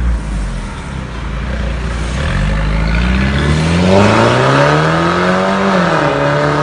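Mercedes GLC300's turbocharged four-cylinder running through an aftermarket valved exhaust: near idle at first, then the revs climb steadily for about three seconds and drop back near the end.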